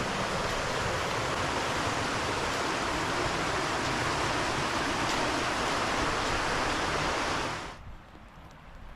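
Steady rush of a waterfall's falling water, dropping suddenly to a much quieter level near the end.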